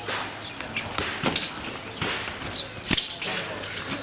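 Sharp snaps and slaps from a kung fu form performed at speed, several in a few seconds, with the loudest crack about three seconds in.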